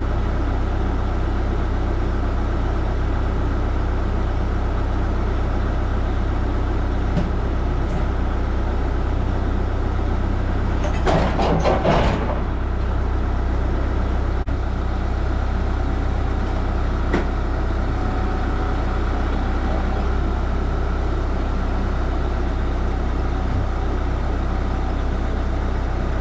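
Kubota tractor's diesel engine running steadily, with a brief louder clatter about eleven seconds in.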